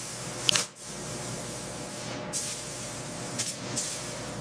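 Gravity-feed air spray guns hissing in short spurts as they spray coating onto steel, over a steady low machine hum.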